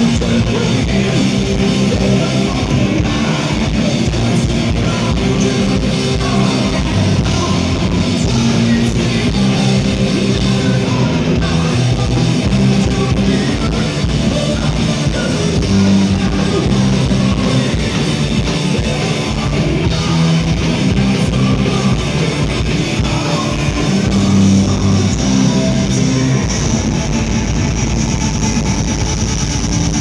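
Heavy metal band playing live: distorted electric guitars, bass, drum kit and a singer, loud and dense, heard from within the audience in a club.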